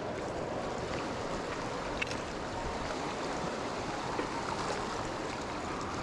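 Steady rushing of a mountain river's flowing water, with a few faint short clicks.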